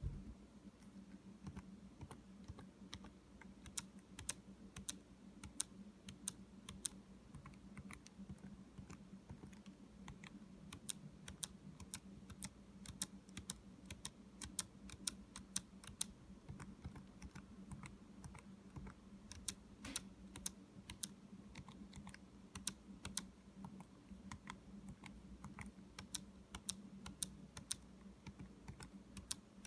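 Spacebar of a 2017 13-inch MacBook Pro butterfly keyboard pressed over and over, giving many sharp clicks at an uneven pace, some in quick pairs: the sound of a sticky spacebar.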